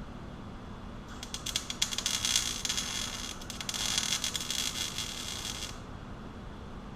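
MIG welding: two welding runs of about two seconds each, with a brief stop between them, a harsh, spitting crackle as a small sheet-metal bracket is welded onto a transmission dipstick tube.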